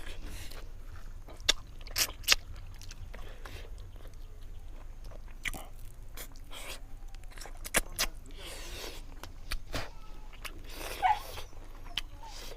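Close-up mouth sounds of someone eating fish curry: chewing with sharp wet clicks and lip smacks at irregular intervals.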